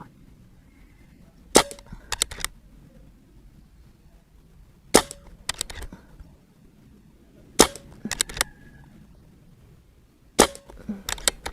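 Barra 1100Z .22 PCP air rifle fired four times, a few seconds apart, each shot a sharp crack. Each shot is followed within a second by a few small clicks from the rifle's action being worked to load the next pellet.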